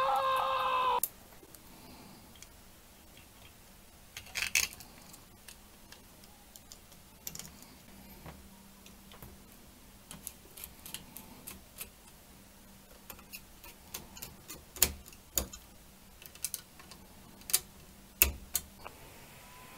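Scattered small clicks and taps of small plastic and metal parts being handled, at irregular intervals, more frequent and louder in the second half.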